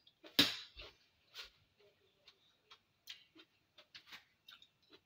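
Small clicks and crackles of a cooked shellfish shell being cracked and peeled by hand, with one louder crack about half a second in followed by a scatter of lighter ticks.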